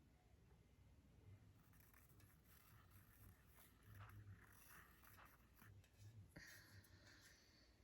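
Near silence: faint, irregular scratching and rustling from about two seconds in, over a low steady hum.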